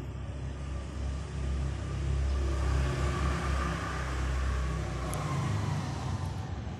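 A motor vehicle passing by: a broad noise that builds from about a second in, is loudest in the middle and fades near the end, over a low rumble.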